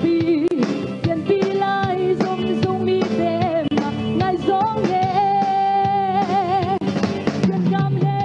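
A woman singing into a microphone over backing music with a steady beat. She holds one long note with vibrato about five seconds in.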